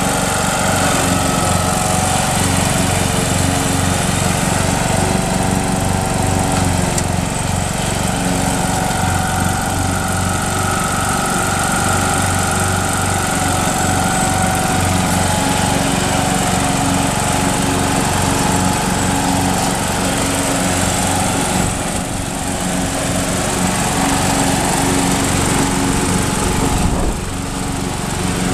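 MTD riding lawn tractor's engine running steadily as the tractor drives across grass, with the engine note dipping briefly twice near the end.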